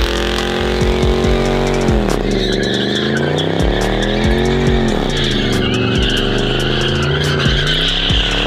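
Pickup truck engine revving hard during a burnout, its pitch dropping and climbing again twice, with the spinning rear tyre squealing from a couple of seconds in.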